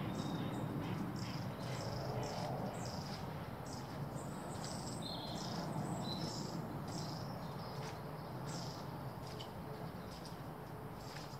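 Songbirds chirping, with many short high notes throughout, over a steady low rumble.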